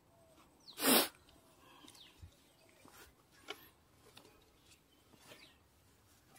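Quiet outdoors: a few soft, irregular footstep taps going down a steel-grating stairway and onto dirt, with one short loud rustle about a second in and faint bird calls.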